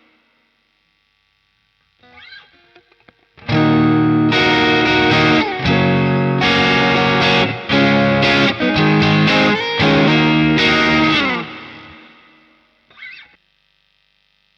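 Electric guitar played through a Caline Pure Sky overdrive pedal. A few faint picked notes lead into a loud, distorted chord riff of about eight seconds with short breaks. The last chord rings out, then one brief note sounds.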